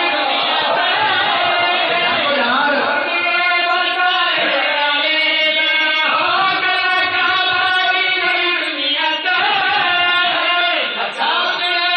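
Several men's voices chanting a Muharram lament together in a sung style, in long, wavering held notes, loud through a PA system.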